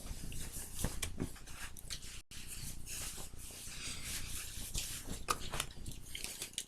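Rustling and rubbing of a hockey jersey's fabric being pulled on over the body, with scattered small clicks and knocks.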